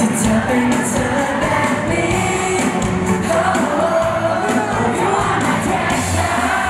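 Live pop song performance: male singers on microphones over a backing band with bass guitar and drums.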